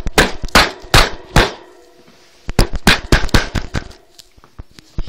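A quick series of sharp knocks and taps in two runs, several a second, with a pause of about a second between them.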